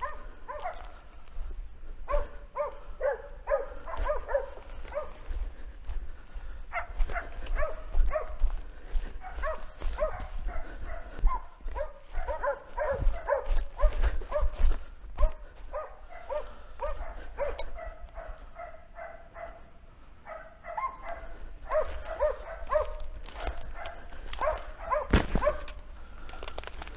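A pack of hunting dogs barking continuously in quick, short barks, several a second, with a brief lull about two-thirds of the way through. Footsteps and branches crack and rustle through brush close by.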